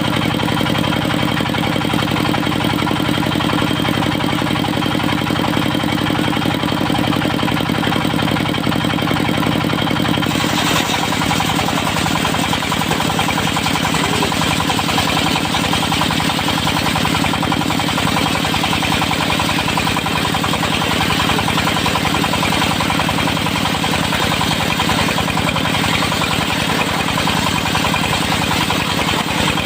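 Diesel engine of a portable circular sawmill running steadily. About ten seconds in, the engine note changes and a loud hiss rises in the upper range as the blade starts cutting teak.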